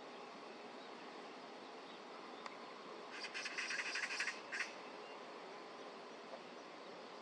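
Male ring-necked pheasant's wing-beating display: a rapid burst of whirring wingbeats about three seconds in, lasting just over a second, with one last short flurry right after. Under it, a steady faint background hum.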